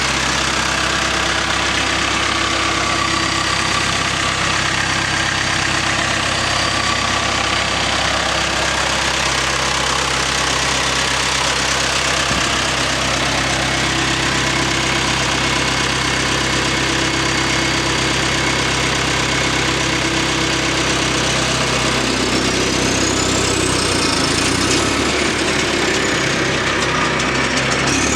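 Vermeer BC1500XL wood chipper's John Deere 4045 four-cylinder diesel running steadily at idle. About 22 seconds in its pitch shifts and a high whine rises and then falls, and near the end the engine starts to rev up.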